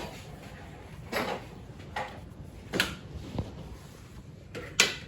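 Pool balls and cue clacking during play: a handful of separate sharp knocks over a few seconds, with a duller thud in the middle and the loudest clack near the end.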